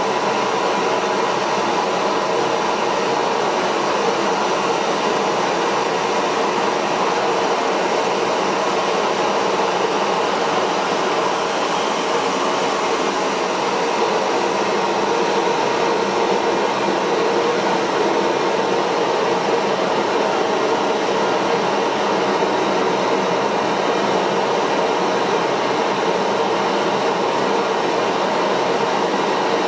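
Small jet engine running steadily at constant speed: a loud, even rush of exhaust with a steady whine in it.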